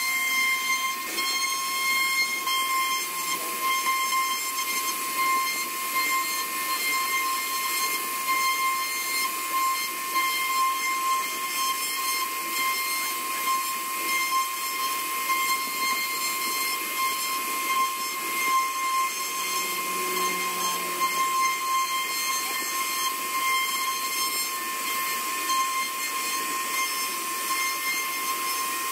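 CNC router spindle running with a steady high-pitched whine while its bit carves a relief pattern into a hardwood panel, with an even hiss of cutting over it.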